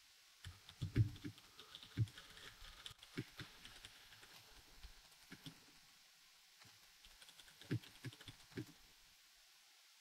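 Das Keyboard 4 Ultimate mechanical keyboard being typed on in short, irregular runs of faint keystrokes, with a short pause partway through. It is heard through RTX Voice noise suppression set at one third, which removes most of the dehumidifier fan noise and leaves only a faint hiss under the clicks.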